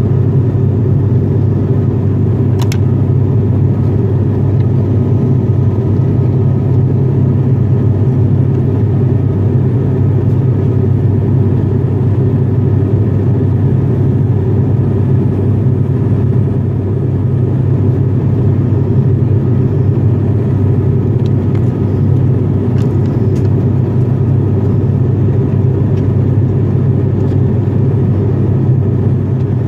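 Steady low drone of an ATR 42-500's twin turboprop engines and propellers, heard inside the cabin in cruise, with one faint click about three seconds in.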